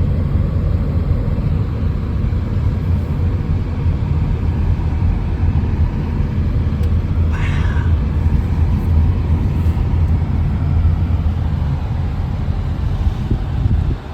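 Steady low rumble of a car's road and engine noise heard from inside the cabin while driving. A short high-pitched squeak cuts in once, about seven and a half seconds in.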